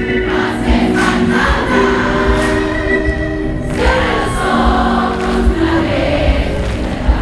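Music with many voices singing together over a steady drum beat.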